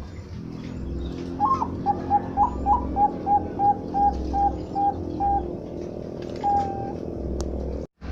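Zebra dove (Bangkok-strain perkutut) cooing: a quick run of about a dozen short notes, roughly three a second, then after a pause a single longer coo. A steady low hum runs underneath.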